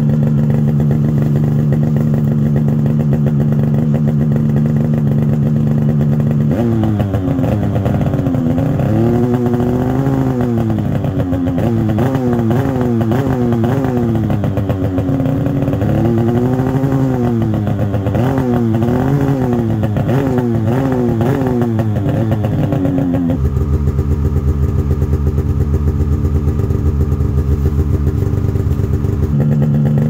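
Polaris Patriot Boost turbocharged 850 two-stroke twin snowmobile engine through an aftermarket RPM stainless muffler, idling steadily and then revved in a series of throttle blips whose pitch rises and falls. After the blips it drops to a deeper, uneven rumble before settling back to a steady idle near the end.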